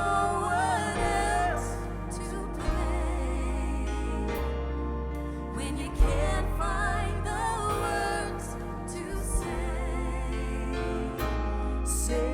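Live worship band playing a slow song with bass, drums, piano and guitar, a few single drum hits accenting the music, and a sung melody line at the start and again about six seconds in.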